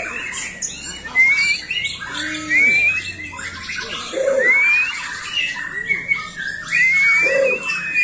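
Many caged songbirds singing and chattering at once, with repeated clear rising whistles cutting through the dense chatter.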